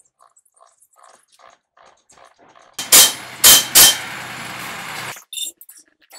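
Pneumatic impact wrench running for about two seconds on the semi truck's V-bar joint fastener, with three loud hammering bursts as it drives it tight, then cutting off suddenly. A few faint clicks come before it starts.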